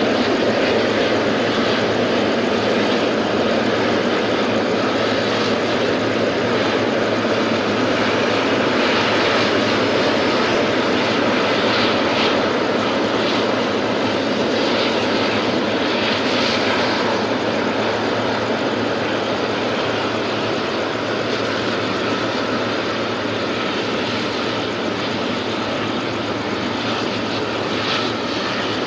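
Steady jet rush and hum of a Boeing 777-300 at low power, with a faint high tone running through it. It slowly gets a little quieter.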